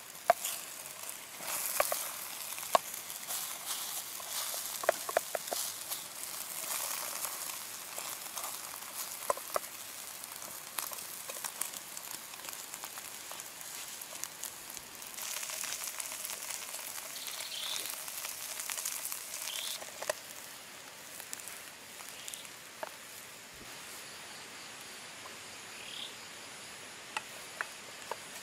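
Egg-and-cabbage omelette sizzling in oil in a small metal pan over a wood fire, with scrapes and taps of a wooden spatula against the pan, busiest in the first ten seconds.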